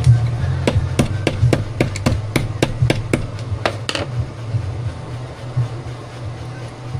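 A quick run of about a dozen sharp snips, three or four a second, stopping about four seconds in: a cutting tool cutting through the thin nickel and copper strip. A steady low hum runs underneath.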